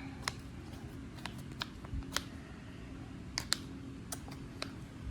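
Scattered, irregular sharp clicks and light scratching as a toy dig kit is scraped and chipped at, digging into a Smashers Dino Ice Age egg for hidden pieces.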